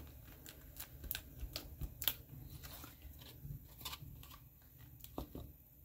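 Faint scattered taps and rustles of a cardstock rocker card being handled and turned over on a craft mat.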